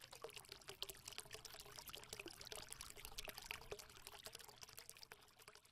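Faint crackling made up of many tiny clicks, with a faint steady hum underneath, fading out near the end.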